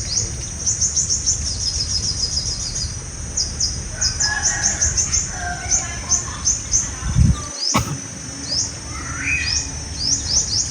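Sunbirds calling: high, thin, quickly rising chirps, first in fast runs and then as spaced single notes. A brief low knock, like handling noise on the microphone, comes about seven seconds in.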